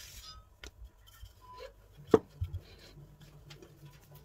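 A wooden rolling pin and hands on a floured work surface: a brief brushing sweep at the start, scattered light taps, and one sharp knock about two seconds in as the rolling pin is handled.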